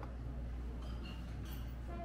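A glass teapot handled over a tray with a few faint light clicks, then tea starting to pour into a small glass cup near the end, over a low steady room hum.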